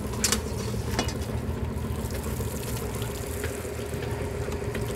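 Fishing boat's engine idling with a steady low hum, and a couple of sharp clicks about a quarter second and one second in.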